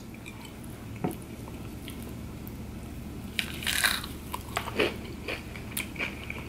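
Close-miked bite into a breaded chicken nugget dipped in cheese sauce, crunching loudly about three and a half seconds in, followed by chewing with small crackly crunches.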